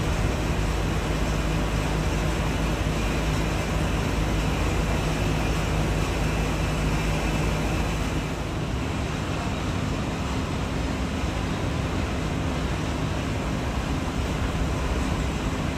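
R188 subway trains running along elevated track into the station: a steady rumble of steel wheels on rail with a low hum from the traction motors.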